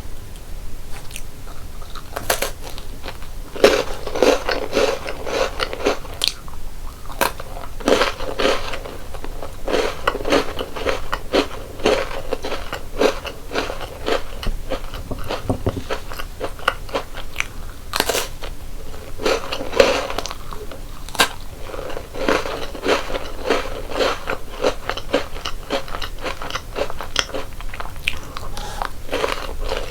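Crunchy chocolate snacks bitten and chewed close to the microphone. A crisp snap comes every few seconds, each followed by a run of quick crunching chews.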